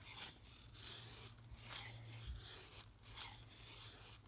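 Knife blade shaving thin curls off a dry wooden stick in repeated push strokes, about five short scraping strokes a little under a second apart.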